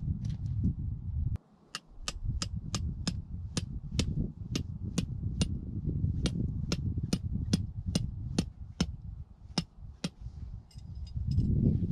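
Tent peg being hammered into gravelly ground, with sharp, even strikes about three times a second that stop near the end. Wind rumbles on the microphone throughout.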